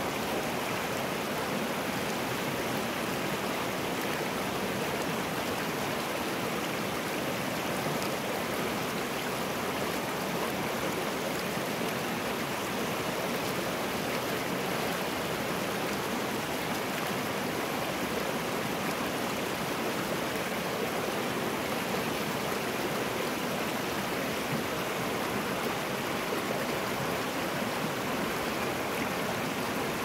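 River water rushing steadily past a large rock, an even, unbroken rushing.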